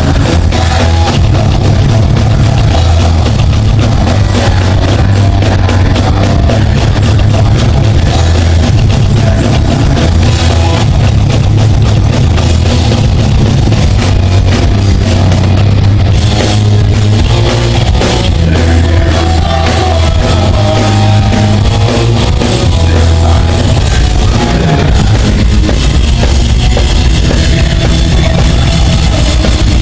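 Live rock band playing loud heavy music at a sound check: drum kit, distorted guitar and bass.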